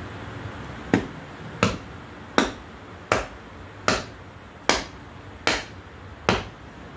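Sharp knocks, about eight of them, evenly spaced about three-quarters of a second apart and each ringing briefly, as caked dirt is chipped off a golf cart's front steering spindle.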